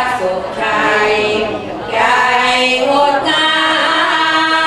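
A women's group chanting Sorapan, Thai Buddhist devotional verse, in unison to an Isan (northeastern Thai) melody, unaccompanied. Long sung phrases with a short breath about one and a half seconds in, and a long held note near the end.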